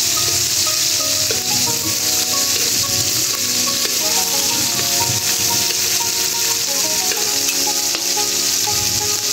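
Shrimp frying in melted margarine in a wok, with a steady sizzle, while they are turned with tongs.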